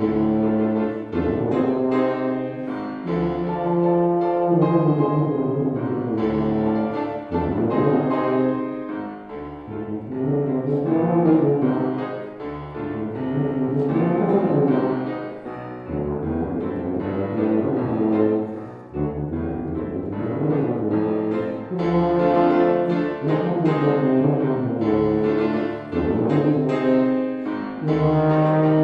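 Tuba and grand piano playing a classical piece together, the tuba's low notes over the piano.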